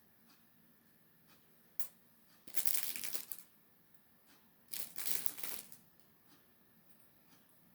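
CD packaging being handled: two rustling, crinkling bursts about a second long each, a couple of seconds apart, with a light click before them.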